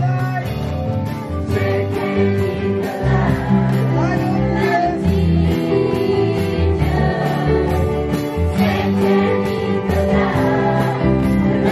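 Live Christian praise song: a group of singers with electric and acoustic guitars over a steady beat.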